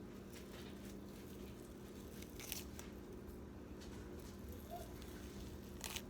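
Faint scattered clicks and small scrapes of hands peeling the skin off smoked sausage, with two sharper clicks about two and a half seconds in and near the end, over a steady low hum.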